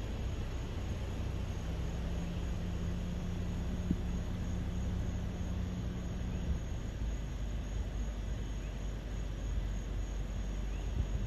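A low, steady engine hum with a rumble underneath. A deeper droning tone comes in about one and a half seconds in and stops about six and a half seconds in.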